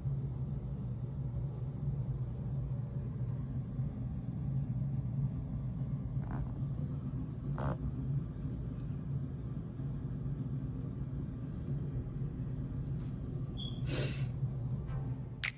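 Steady low background rumble, with a few faint clicks and a brief rustle near the end.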